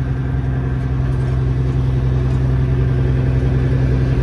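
Kenworth W900L semi truck's diesel engine running steadily as the truck drives, heard from inside the cab: a low drone that grows slightly louder.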